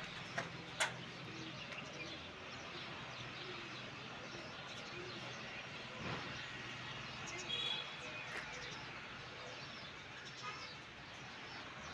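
Outdoor ambience: small birds chirping now and then over a steady low hum of town background, with two sharp clicks in the first second.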